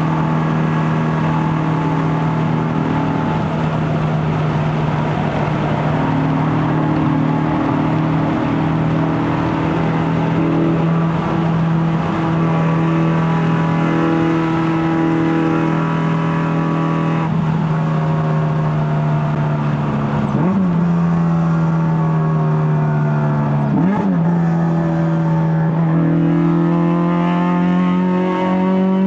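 Honda K24A four-cylinder engine and straight-piped stainless exhaust with a KTuned muffler, pulling at a steady engine speed under way. The pitch drops sharply and recovers twice in quick succession, about two-thirds of the way in, then rises slowly as the car accelerates near the end.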